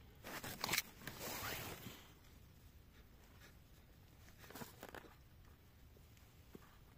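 Faint rustling and scraping: a few short bursts in the first two seconds and another a little before five seconds, with quiet between.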